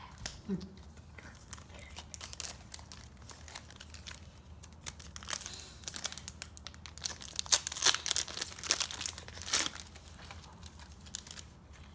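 Foil Match Attax trading-card packet being torn open and crinkled by hand, a run of sharp crackling rustles that is loudest between about five and ten seconds in.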